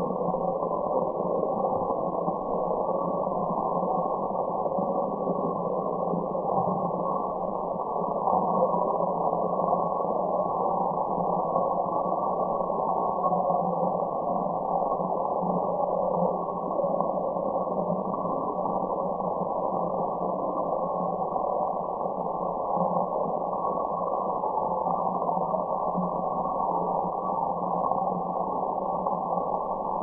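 Steady, unchanging white-noise track: a muffled rushing hiss with no high end, cut off sharply at the top, with a slight low drone under it.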